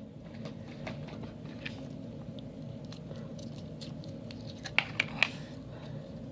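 Slime being squished and worked by hand, with scattered small wet clicks and pops, and three sharper clicks close together near the end.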